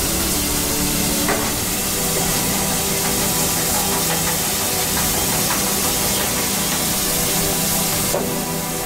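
Class 52 steam locomotive hissing steadily as steam escapes, with a low steady hum underneath.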